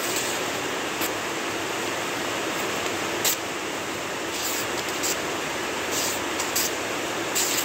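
A knife blade made from brush-cutter blade steel slicing through a sheet of paper held in the air, as a test of its edge. About half a dozen short, hissing rasps sound over a steady background hiss.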